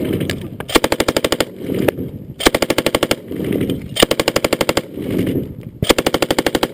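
PKM machine gun (7.62×54mmR) firing four short bursts of about ten rounds each, evenly paced, with the echo rolling on between bursts.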